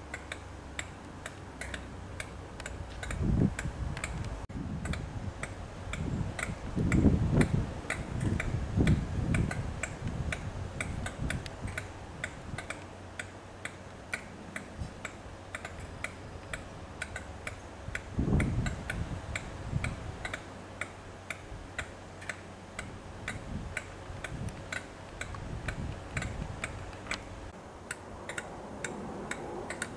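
Diesel locomotive running at low power, with low rumbling swells that come and go, under a steady, regular ticking.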